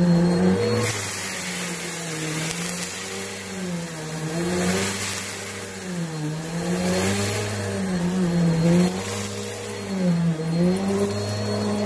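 Bissell Helix Turbo upright vacuum running on carpet. Its motor hum dips and rises in pitch every couple of seconds as the cleaner is pushed back and forth.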